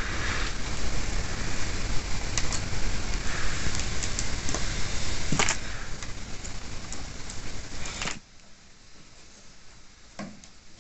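Crackling and rustling of small wires and connectors being handled, with a few sharp clicks, over a steady noisy hiss. After a sudden drop in level, one click as a wiring-harness plug is handled.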